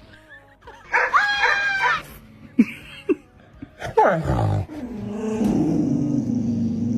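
A dog vocalizing: a high, wavering cry about a second in, a falling cry near four seconds, then a steady low growl that builds over the last couple of seconds.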